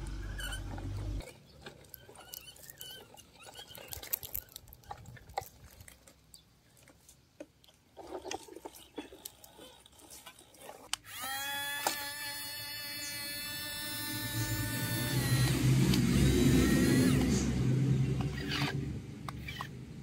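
Small electric toy motor whining at a steady pitch, rising quickly as it starts about halfway through and running for about four seconds. A louder low rumble follows and is the loudest part, with scattered light clicks and knocks before the motor starts.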